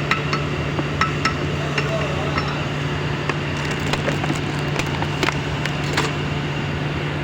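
Light metallic taps and clinks, a few in quick succession at the start and several scattered later, over a steady low hum.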